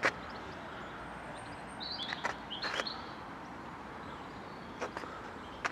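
Outdoor park ambience: a small bird chirps a few times about two seconds in, over a steady hiss of wind and distant traffic, with a few footsteps on the path.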